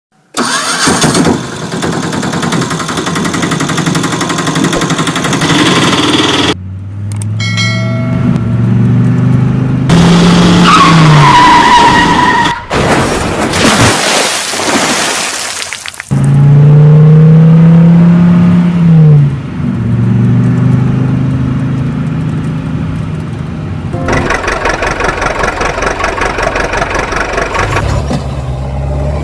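Vehicle engines running and revving in a string of separate clips that cut abruptly from one to the next, with a loud noisy stretch about halfway through.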